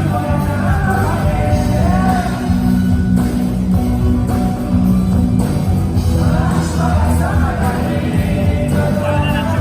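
Rock song with singing over a steady band accompaniment; the vocal line pauses in the middle and comes back.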